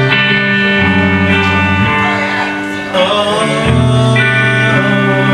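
Rock band playing live: guitar chords ringing over low notes that change every second or so, with a gliding pitch about three seconds in.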